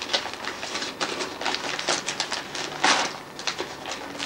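Wrapping paper and cellophane rustling and crinkling as presents are unwrapped, in a dense run of crackles with a louder rustle about three seconds in.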